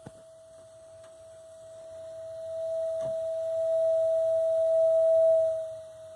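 Water heater sounding a steady single-pitched tone that swells louder over a few seconds and then falls away near the end: the resonant noise that the owner traces to the burner jet and stops by disturbing the jet.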